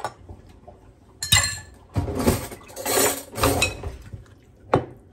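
A metal spoon clinking and scraping against a glass mixing bowl while stirring a chopped salad with dressing. There is a sharp clink a little over a second in, a couple of seconds of stirring, and a last click near the end.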